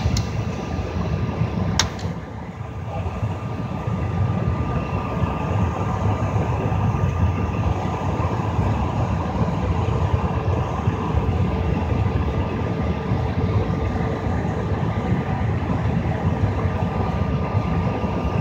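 Steady cabin noise inside a CRJ-700 airliner standing at the gate before departure: a low rumble and air-conditioning hiss with two faint steady tones, and a single sharp click about two seconds in.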